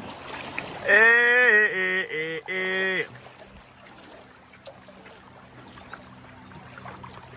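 A voice calls out loudly in a drawn-out, sung call of a few held notes lasting about two seconds, with no words. After it comes the quieter steady trickle and lapping of river water around a kayak.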